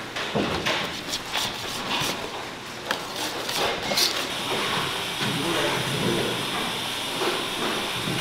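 Wire whisk stirring a liquid confection mixture in a stainless steel bowl, clicking and scraping against the metal in the first few seconds, over a steady hiss of kitchen background noise.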